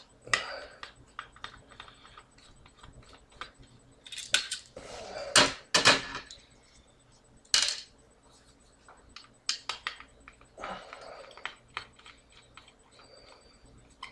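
Screwdriver working small screws out of a hard drive's mounting in a plastic enclosure: irregular clicks and scrapes with light metallic clinks as screws and parts are handled, a few sharper knocks among them.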